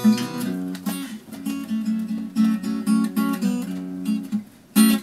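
Acoustic guitar played live, a repeating riff of picked and strummed notes; it drops away briefly about four seconds in, then a hard strum rings out near the end.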